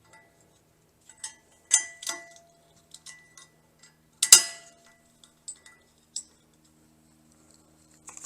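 Sharp metallic clicks and clinks of a lock being fitted to the spare tire carrier's threaded receiver bolt, a few scattered strikes with a short ring, the loudest about four seconds in.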